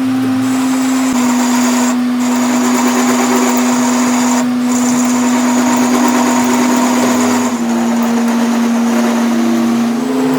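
Metal lathe running, with a steady motor hum and a high hiss over it that breaks off twice briefly and stops about three-quarters of the way through, when the hum drops slightly in pitch.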